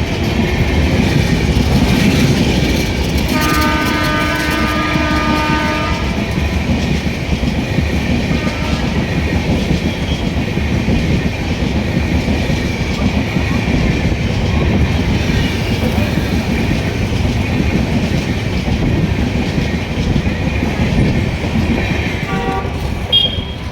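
Indian Railways passenger train running through with a continuous rumble and clickety-clack of wheels on the rails. The locomotive's horn sounds for about three seconds, a few seconds in.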